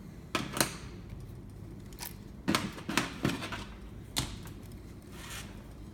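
Scattered sharp clicks and light metallic rattles from hands working a balance bike's brake cable and fittings, about eight in all, with a short scrape near the end.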